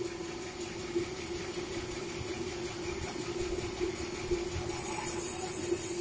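STW log band sawmill running, a steady machine hum with a constant tone. A high hiss joins about five seconds in as the blade works through a large red meranti log.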